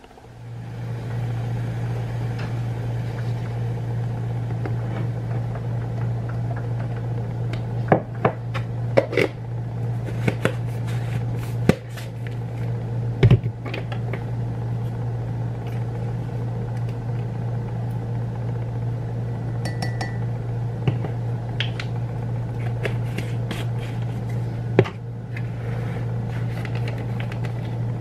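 Kitchen clatter: mugs, dishes and utensils clinking and knocking now and then on the counter, over a steady low hum.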